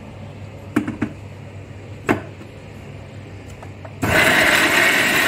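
A few sharp clicks and knocks as a steel mixer-grinder jar is lidded and set on its base. About four seconds in, the electric mixer grinder's motor starts suddenly with a loud, steady whir, grinding soaked greens and chillies into a paste.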